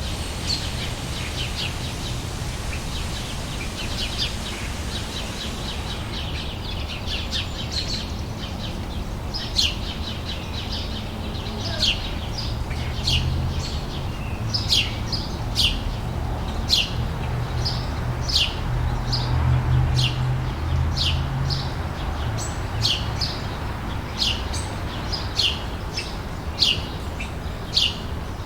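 Outdoor summer ambience: birds chirping over a low background rumble. A busy tangle of chirps gives way to short, sharp, falling chirps repeated about once a second, loudest in the second half.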